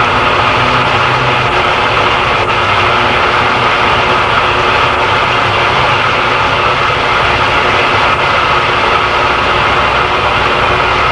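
A steady whirring machine noise with a constant hum, loud and unchanging throughout.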